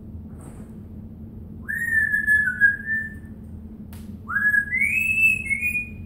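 African grey parrot whistling two short phrases, each sliding up at the start and then stepping down through a few held notes, with a sharp click just before the second phrase.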